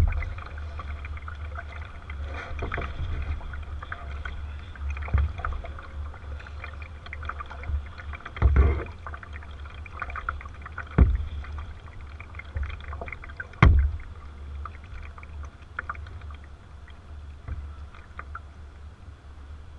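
Kayak on the water, heard from a camera on its bow: water splashing and lapping against the hull over a constant low rumble. Sharp thumps land every few seconds, in time with the paddling, and two of them midway are the loudest.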